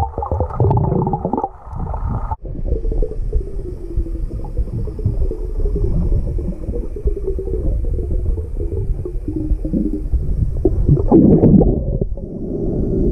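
Muffled water noise picked up by a camera held underwater: a steady low rumble and gurgling with wavering tones, changing abruptly about two seconds in.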